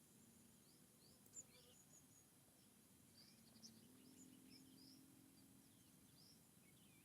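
Faint forest birdsong: many small birds giving short, high chirps and twitters that overlap, over a faint low hum.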